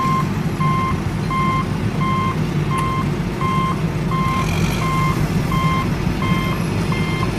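A truck's reversing alarm beeping steadily at one pitch, about one and a half beeps a second, over the low rumble of the truck's engine running. Both cut off suddenly at the end.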